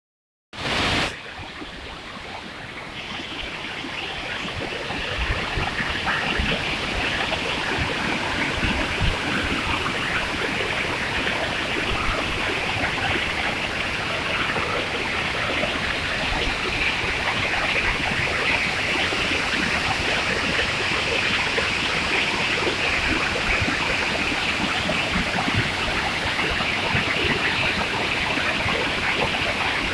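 Waterfall rushing: a steady roar of falling water that builds over the first few seconds and then holds. A short burst of noise comes right at the start.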